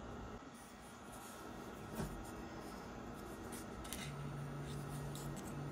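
Faint handling of small resin model parts between the fingers: soft rubbing with a few light clicks, the clearest about two seconds in. A low steady hum comes in about four seconds in.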